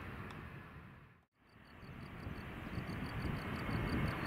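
Distant rumble of an Airbus A321's jet engines on the ground. It fades out to silence about a second in and fades back in, growing louder. After the fade-in, a high chirp repeats about four times a second over the rumble.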